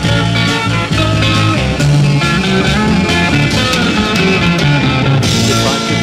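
A mid-1960s rock band's recording in an instrumental stretch with no singing: drums, bass and electric guitar playing a steady beat, with a cymbal crash near the end.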